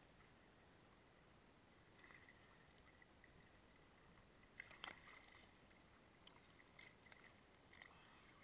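Near silence: faint water lapping around a camera bobbing at the sea surface, with a few small knocks and clicks about five seconds in and again near the end.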